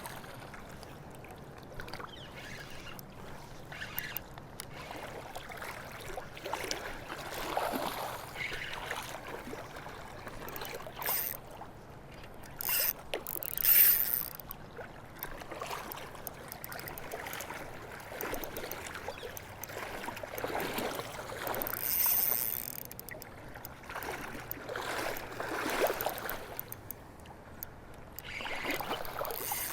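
Irregular splashes from a hooked coho salmon fighting on the line in shallow river water, over the steady rush of the river.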